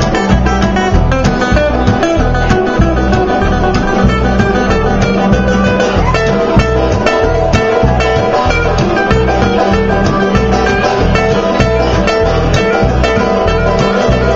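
Live acoustic string band playing an instrumental passage: acoustic guitar picking together with mandolin and banjo, over a steady low rhythmic pulse.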